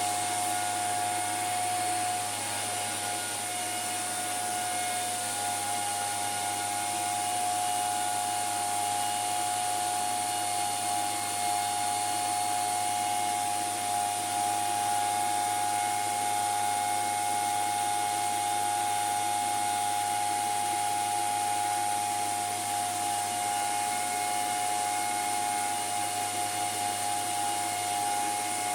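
ASIC cryptocurrency miners and their cooling fans running steadily under load: a constant rushing fan noise with a strong steady whine in the middle range and a low hum beneath.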